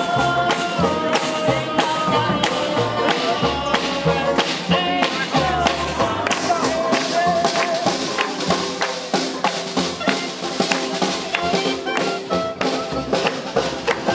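Live small acoustic swing jazz band playing a tune: upright bass, banjo, snare drum and clarinet over a steady beat. A held melody line carries the first half, and the snare drum stands out more in the second half.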